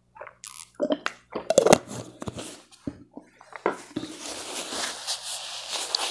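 Handling noise from a plastic water bottle, a string of small clicks and taps as it is drunk from and set down. About four seconds in, a steady rustling hiss begins as a tissue is pressed to the face and the nose is blown into it.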